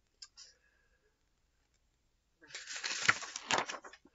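Paper page of a picture book being turned by hand, rustling and flapping for about a second and a half in the second half, after a quiet stretch.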